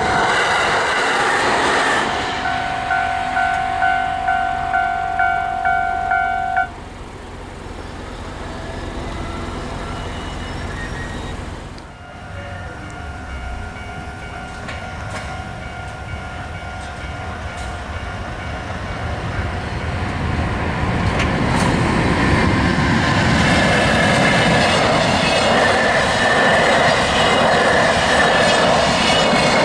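Railway level-crossing warning bell ringing its two-tone 'kan-kan' about twice a second, cutting off suddenly about seven seconds in. Later a train's running noise with wheel clatter builds up and stays loud through the last several seconds.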